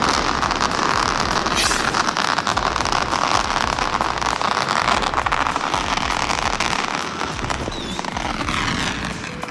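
A string of firecrackers going off in a fast, continuous crackle of small bangs, easing off over the last couple of seconds.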